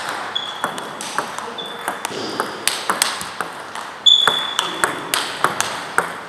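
Table tennis balls clicking off bats and tables in quick, uneven succession from rallies on several tables. A few hits ring with a short high tone, and the loudest comes about four seconds in.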